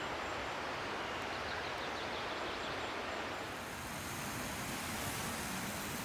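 Steady outdoor background hiss with no clear single source; it turns brighter and hissier about three and a half seconds in.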